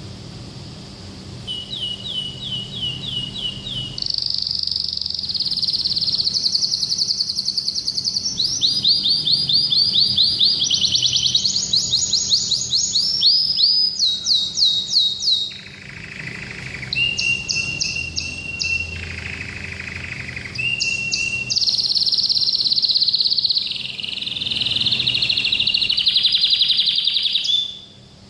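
Domestic canary singing a long, varied song: phrase after phrase of fast trills of repeated high notes, each phrase at a different pitch and speed. The song breaks off just before the end.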